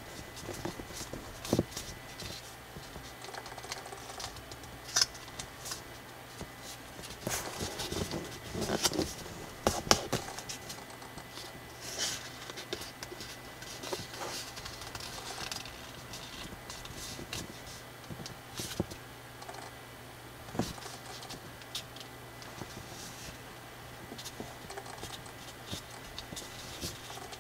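Thick coloured drawing paper being folded and creased by hand into an origami pig: irregular crackles, rustles and sharp taps, busiest in the first half, over a faint steady hum.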